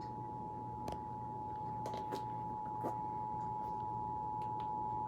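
Emergency Alert System attention signal: the steady two-tone alarm at 853 and 960 Hz, announcing an emergency alert, held level and cutting off suddenly near the end. A low hum and a few faint clicks lie under it.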